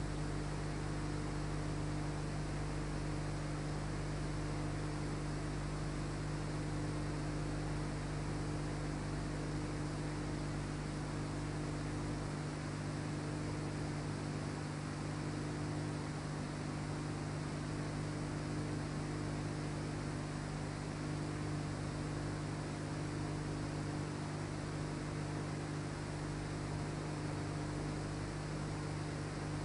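Steady electrical hum with an even hiss and no other sound: the noise floor of an old film soundtrack, with no sound of the carving work.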